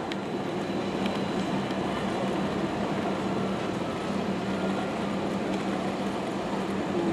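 Street ambience at a bus and trolleybus stop: an even rush of traffic noise with a steady low hum from standing buses.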